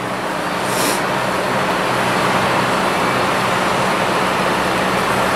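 Steady road-vehicle and traffic noise with a low engine hum, a little louder from about a second in, and a short hiss just before.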